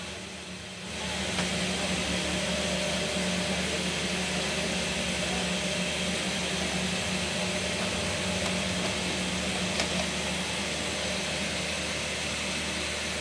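Steady low machine hum with an even hiss over it.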